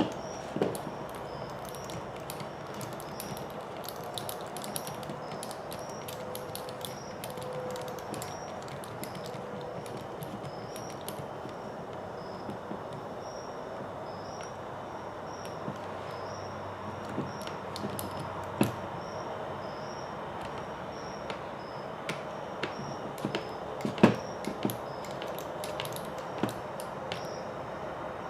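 Small screws and plastic RC kit parts being handled and fitted by hand: a few sharp, scattered clicks and taps over steady background hiss, the loudest a little before the end.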